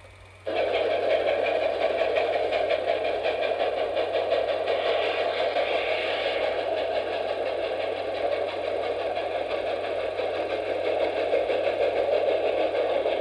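An engine running steadily with a fast, even pulsing. It starts abruptly about half a second in.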